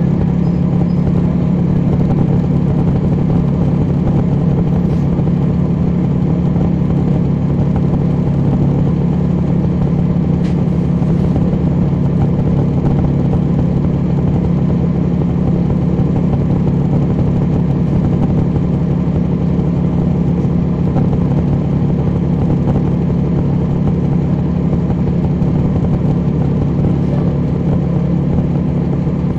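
Cummins ISL9 inline-six diesel engine of a 2011 NABI 40-SFW transit bus running steadily, a deep even drone heard from inside the rear of the bus.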